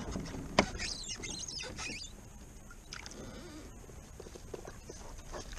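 A sharp knock about half a second in, then a second or so of rattling and scraping, then a few light knocks: gear being handled aboard a plastic fishing kayak while a marker buoy is taken up over the side.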